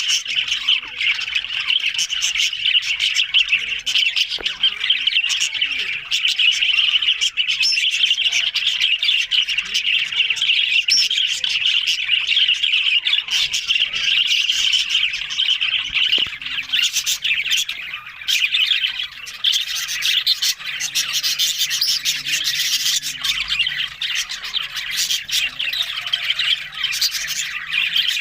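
Budgerigars chattering and warbling without pause, mixed with many short, sharp chirps and squawks that grow busier in the later part.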